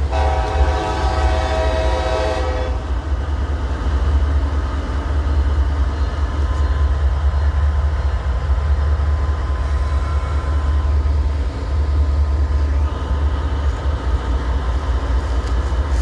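Diesel locomotive horn sounding a steady chord for about two and a half seconds, then the continuous rumble of the train running past.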